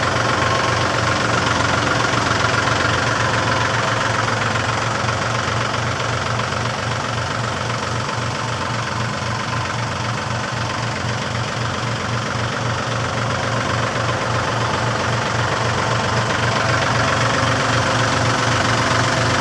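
A backhoe's diesel engine idling steadily with an even, rhythmic pulse.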